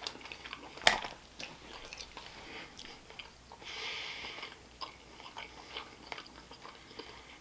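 Close-miked chewing of a mouthful of pozole with chicken, soft wet smacks and mouth clicks. There is a sharper click about a second in and a short breathy hiss around four seconds in.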